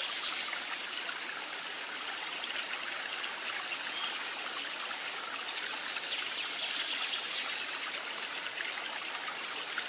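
Steady hiss of running water, like a trickling stream, holding even throughout.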